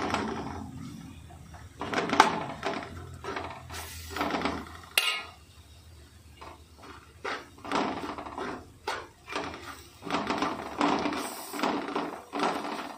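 Metal spoon scraping and knocking against a metal pot in irregular strokes while stirring fried onions and spice powders as they are heated to roast the masala.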